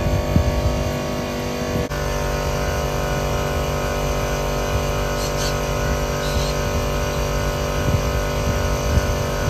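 Copeland scroll compressor of an Actron Air package air conditioner running steadily under load, a constant hum of several steady tones over a mechanical rush. A few light knocks near the start, and a brief break just under two seconds in.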